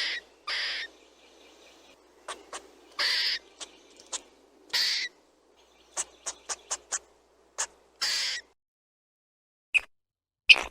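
Squirrel calls: an irregular run of short, sharp chirps mixed with longer harsh calls of about half a second each. After about eight and a half seconds the faint background hiss drops out and only a few isolated sharp chirps follow.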